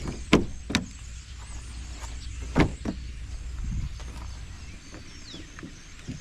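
Four sharp knocks or clicks, two close together near the start and two more about halfway through, over a low steady rumble that fades in the second half.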